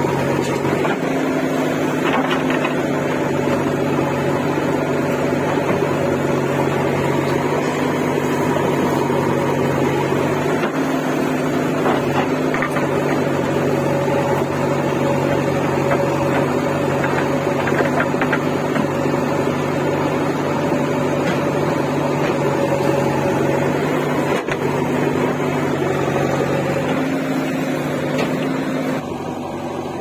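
JCB 3DX backhoe loader's diesel engine running steadily while the backhoe digs and dumps soil, its tone shifting slightly a few times. Near the end the sound drops a little in level.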